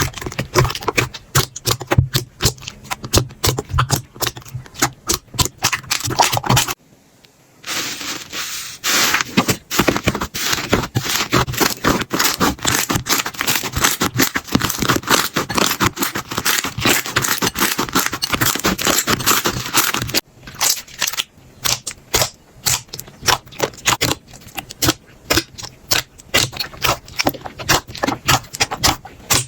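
Slime being squeezed and poked by hand, making dense crackling and popping clicks. It stops for about a second around seven seconds in, crackles densely for a while, then thins to sparser pops near the end.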